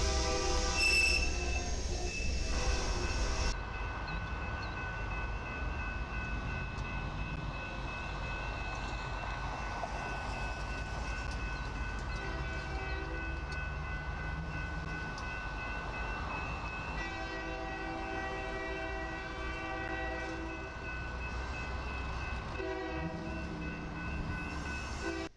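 Diesel freight locomotive air horn sounding in repeated chord blasts over the steady rumble of a moving freight train. One blast fades out about two seconds in. After a cut, a different locomotive approaches and sounds three more blasts, the middle one the longest at about three seconds.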